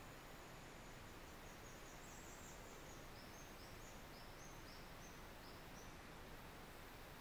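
Near silence: a steady faint hiss, with a quick run of about a dozen short, high chirps from a small animal, starting about a second and a half in and stopping about six seconds in.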